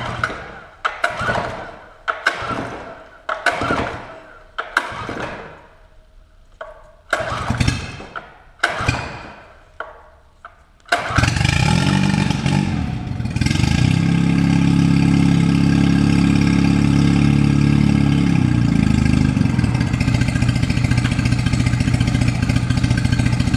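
Small four-stroke outboard motor cranked by its pull-start cord, many pulls over about ten seconds, before it catches about eleven seconds in. It runs up quickly and holds a high speed, then settles to a lower steady speed near the end. It is slow to fire because oil drained into the cylinders has left it running overly rich.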